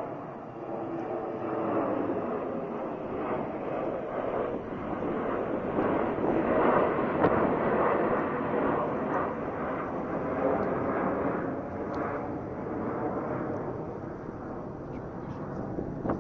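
Sukhoi Superjet 100's twin SaM146 turbofan engines at take-off thrust: a steady jet-engine noise that grows loudest about six to eight seconds in, then eases slightly.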